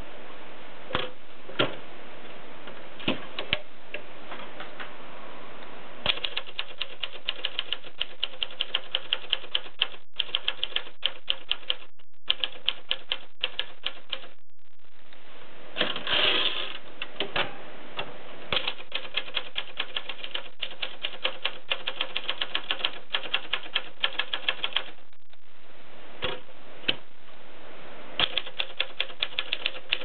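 Keys of a red 1970s Brillant typewriter being struck. It starts with a few single strokes, then runs of typing at about four strokes a second, broken by short pauses and one brief noisy burst about halfway through.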